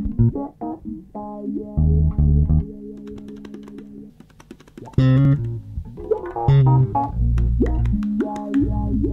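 Instrumental opening-title theme music: plucked string notes over a bass line, with a louder accent about five seconds in.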